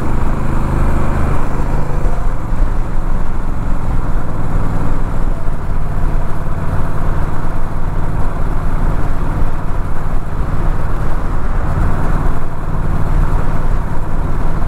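Honda Rebel 1100's 1084 cc parallel-twin engine running steadily while the motorcycle cruises at around 35 mph, with wind noise rushing over the microphone.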